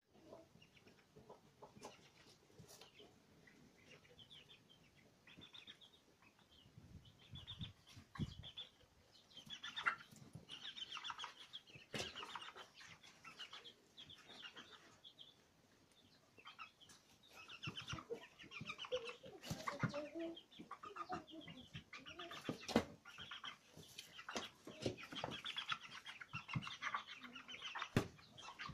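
A flock of young broiler chickens peeping and clucking softly in short, high, repeated calls, with a few lower clucks about two-thirds of the way in and scattered sharp clicks throughout.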